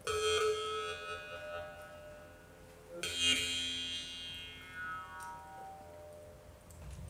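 Mouth harp (jaw harp) being played: a ringing, buzzing drone struck sharply twice, about three seconds apart, each time with a bright overtone melody sliding downward as it fades.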